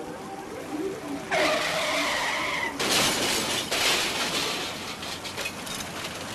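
Car tyres screeching in a skid for about a second and a half, then a crash with shattering glass, the noise staying loud for a couple of seconds before fading.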